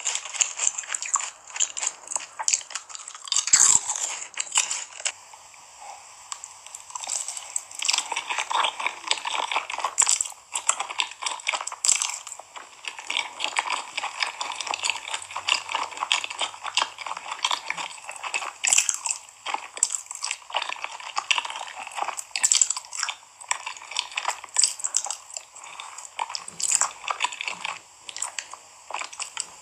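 Close-miked eating: a person biting and chewing food with a continuous stream of crisp crunching and crackling.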